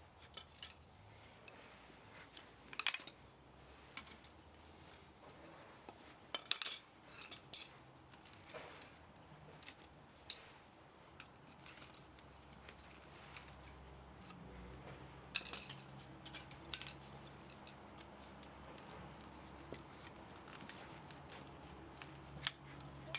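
Scattered sharp clicks and snips of hand tools on metal, the sort made by cutting and prying apart an electric motor's parts for scrap. They come singly and in short clusters, faint and irregular.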